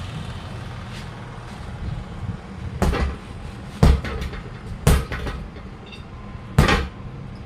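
Four heavy hammer blows, struck at uneven intervals, on a truck tyre and wheel while it is being changed. Each blow is a sharp bang with a short ring after it, over a steady low rumble.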